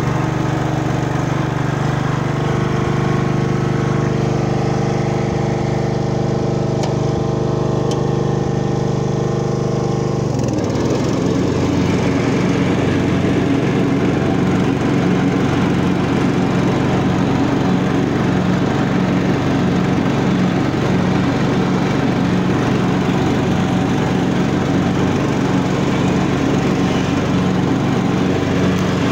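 Craftsman T1200 lawn tractor's engine running steadily while driving and mowing. About ten seconds in the sound turns rougher and slightly lower, with an even pulsing.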